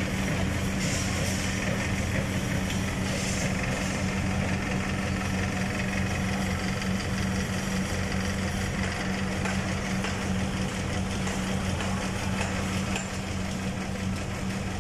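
A truck's diesel engine idling steadily.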